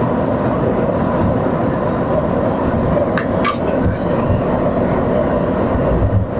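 Gas brazing torch burning with a steady rushing hiss while pipe joints are brazed with a brass rod. A few short clicks come about three and a half seconds in.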